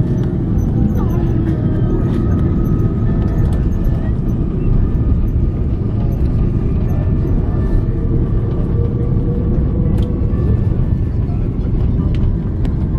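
Airbus A330-300 landing rollout heard from inside the cabin: a loud, steady rumble of engines, airflow and wheels on the runway as the airliner slows with its spoilers up.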